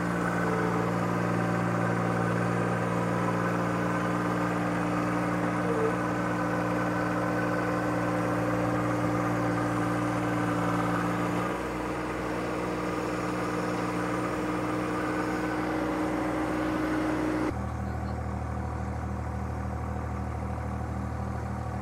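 John Deere 1025R's three-cylinder diesel engine running steadily while it drives a loader-mounted hydraulic auger boring a hole. About 11 seconds in the engine note shifts and drops slightly, and a few seconds before the end the sound changes abruptly.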